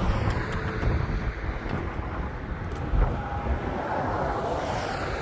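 A car engine running with a steady low rumble, with wind on the microphone; the sound swells a little about four seconds in.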